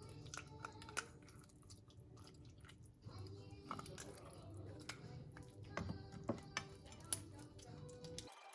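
Quiet background music, with scattered wet clicks and squishes from hands rubbing blended garlic-ginger seasoning into tilapia fish. The sharpest clicks come about a second in and again around six to seven seconds in.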